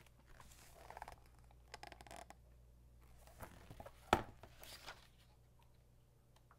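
Pages of a book being handled and turned: soft paper rustling, with one sharp tap about four seconds in.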